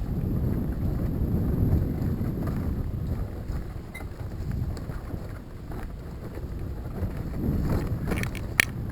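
Uneven low rumbling of wind buffeting the microphone, with a few sharp clicks near the end.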